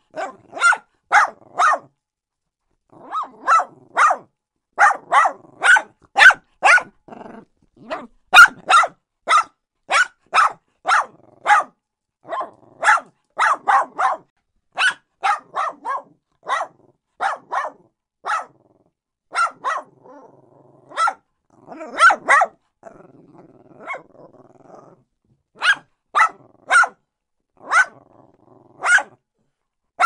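Small dogs barking in quick runs of short, sharp barks, about one to two a second, with brief pauses. Low growling fills the gaps between barks a little past the middle.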